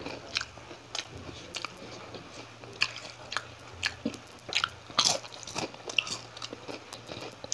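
Close-miked chewing and lip-smacking of someone eating grilled milkfish by hand: irregular wet mouth clicks, with a sharper bite about five seconds in.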